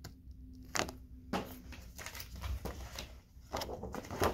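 Laminated cards and a plastic folder being handled: a few light taps and clicks, then a flurry of rustling and clicking near the end as a page is turned.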